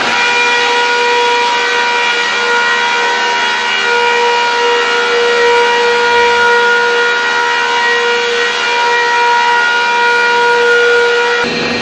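Sawdust-making machine running at speed with a loud, steady whine of several held tones. Near the end a rougher, lower noise comes back in.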